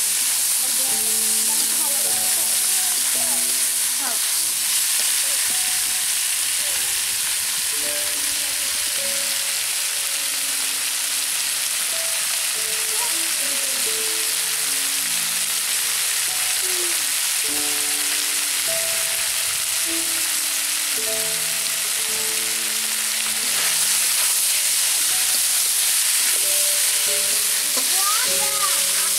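Green jackfruit and potato pieces sizzling as they fry in oil in a wok, stirred with a metal spatula. A quiet background melody plays under the steady sizzle.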